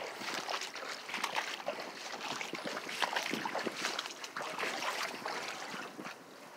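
Shallow water sloshing and splashing in small, irregular splashes, quieter near the end.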